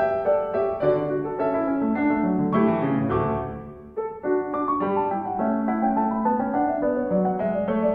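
Background piano music: a quick run of single notes and chords, with a brief lull about four seconds in.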